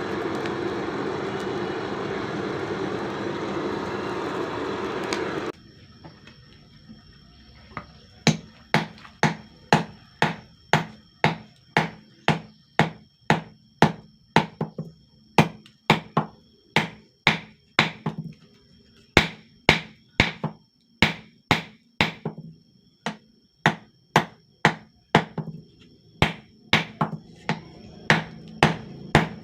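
A steady rushing noise cuts off suddenly about five seconds in. Then a hand hammer strikes steel on an anvil at about two blows a second, pausing briefly a few times, with a thin high ring hanging between the blows: a blade being forged from an old leaf spring.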